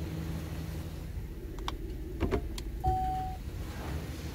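Cabin of a 2014 Holden Commodore with its 3.0-litre V6 petrol engine running low as the car creeps along, with a few light clicks and rattles around the middle and a thump plus a short single beep about three seconds in.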